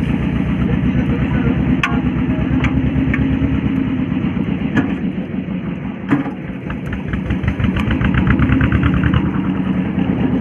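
Small fishing boat's engine running steadily with a fast, even firing rhythm; it eases off about six seconds in and picks up again.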